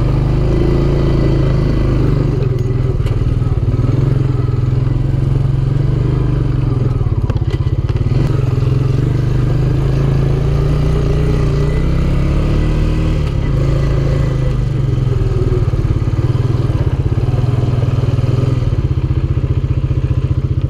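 ATV engine running as the quad is ridden along a trail, heard from the rider's seat, its pitch wavering up and down a little with the throttle.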